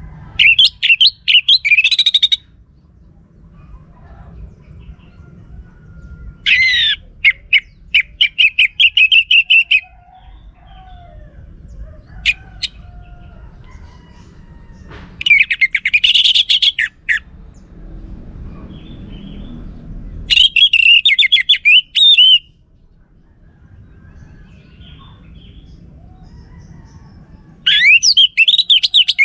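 Orange-headed thrush song: five loud phrases of rapid, sweeping, chirping notes, each lasting about two seconds, with pauses of a few seconds between them.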